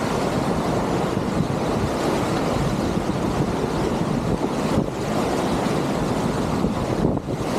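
Fast high-water whitewater rushing steadily and loudly around a kayak, with water and wind buffeting the microphone; the noise dips briefly near the end.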